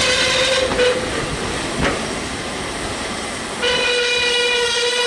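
Steam locomotive whistle sounding twice: a short blast at the start and a longer, steady blast of about two seconds beginning past the halfway point. Between the blasts a passenger coach rolls past, its wheels clicking twice over rail joints.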